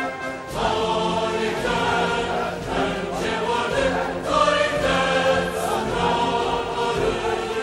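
Many voices singing a song together, with notes held and changing in a steady march-like line.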